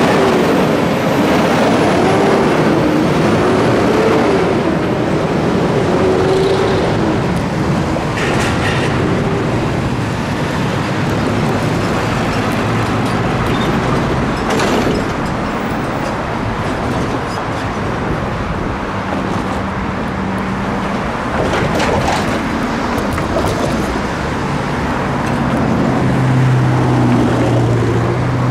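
Road traffic at a railroad crossing: cars and trucks running and passing, with a wavering engine or brake sound in the first few seconds and a steady low engine hum near the end.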